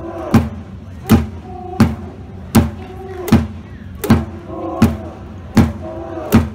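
Rhythmic cheering from the stands at a volleyball match: a loud thump about every three-quarters of a second, like a drum beat or clap, with shouted chanting voices between the beats.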